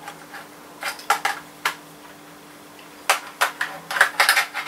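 Hard plastic clicks and clatter of a bicycle lamp and a mounting bracket being handled and tried together for fit: a few separate clicks in the first two seconds, then a quick run of clicks near the end.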